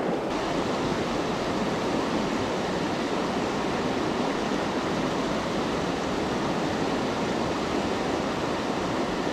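Fast-flowing river water running over a stony bed: a steady, even rush with no breaks.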